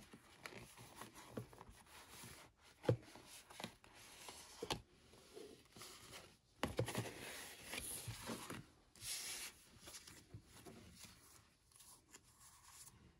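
Cardboard album packaging and paper inserts being handled: quiet rustling and sliding of card and paper, with a few light taps.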